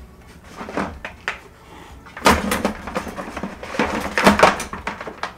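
Gear being rummaged and knocked about inside a plastic 5-gallon bucket: a few light knocks, then from about two seconds in a busy run of clatters and rustles.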